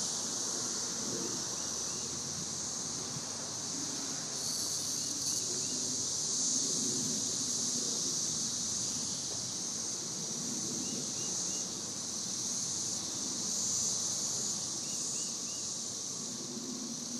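Dense chorus of periodical cicadas: a steady, high-pitched drone, with short chirps now and then.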